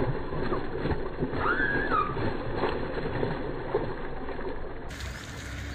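A hooked snakehead splashing and thrashing in shallow, weedy water at the bank, with water sloshing and a few knocks. A brief rising-and-falling squeak comes about a second and a half in.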